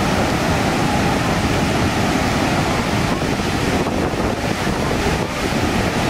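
Waterfall gushing down rocky cascades: a loud, steady rush of falling water.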